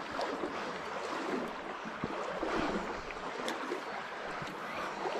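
Shallow trout stream flowing over riffles: a steady rush of water, with a few faint clicks.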